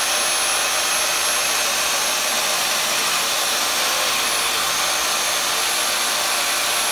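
Handheld vacuum running steadily, held under the bit to catch dust, together with an electric drill boring a hole into a house wall. The result is a continuous, even whirring hiss with a faint high whine.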